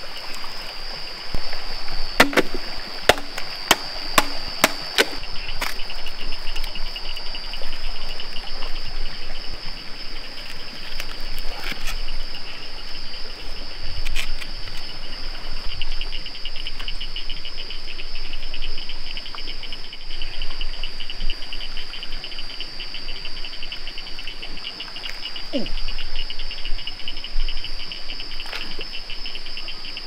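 Rainforest insects calling steadily: a continuous high buzz throughout, joined about a fifth of the way in by a fast pulsing trill. A few sharp knocks come in the first few seconds.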